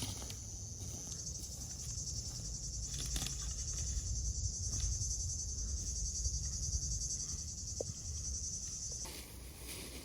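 Insects buzzing: a steady, high, finely pulsing chorus that stops abruptly about nine seconds in, over a low rumble.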